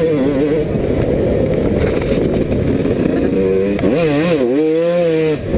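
Yamaha YZ125 two-stroke motocross engine revving up and down with the throttle, heard from a camera on the bike, with wind rushing over the microphone. The engine note is buried in wind noise from about half a second in, then comes back strongly with sharp rises and falls for the last couple of seconds.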